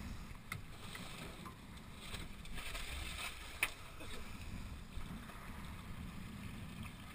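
Low steady rumble of wind and water around a small aluminium fishing boat, with a few light knocks and one sharp click about three and a half seconds in.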